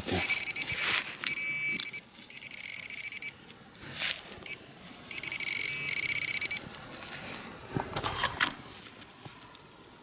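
Metal-detecting pinpointer beeping: a high-pitched, rapidly pulsing electronic tone in several stretches of about a second, with short pauses between, as it closes in on a small coin in the soil. Brief scraping of soil and leaves between the beeps.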